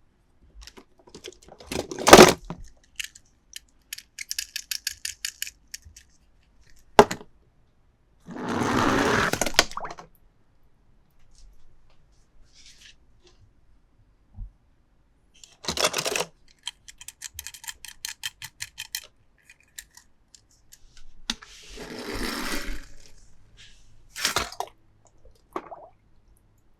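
Toy cars and their packaging being handled: several sharp knocks and clicks, two runs of rapid ticking, and two bursts of rustling.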